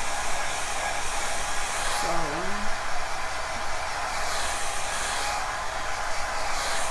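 Handheld blow dryer running steadily on wig glue, drying the adhesive until it turns clear. Its airy rush swells twice in the second half.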